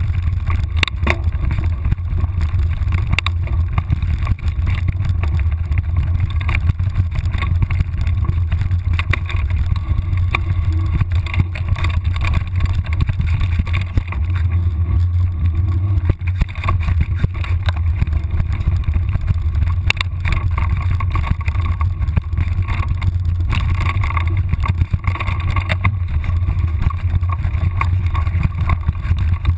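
Steady low rumble of wind buffeting an action camera's microphone as it moves quickly along a forest trail, with scattered irregular knocks and rattles from the camera jolting.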